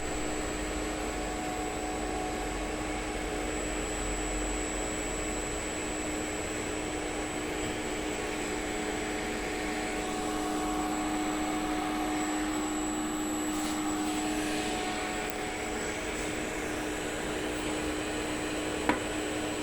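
Electric motor running steadily on a Siemens Micromaster 440 variable-frequency drive, a test run of the repaired drive: a steady hum and rush of air with a constant high whine. One sharp click about a second before the end.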